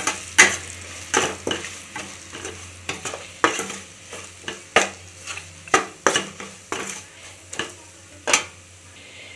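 Metal spoon stirring onions and spice powders in a steel pan, clinking and scraping against the pan about once or twice a second over a light sizzle of frying oil. The masala is being sautéed in the oil.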